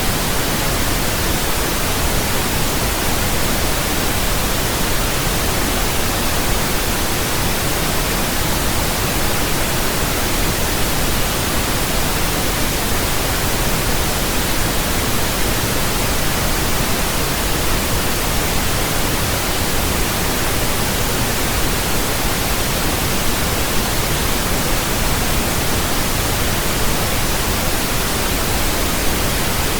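Steady synthetic pink noise: an even, unchanging hiss spread across all pitches, with no tones or breaks.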